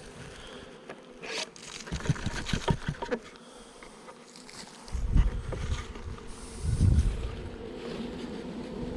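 Honeybees buzzing around an open hive, a steady hum. Handling noises break in: clicks and knocks about two to three seconds in, and low rumbles about five and seven seconds in.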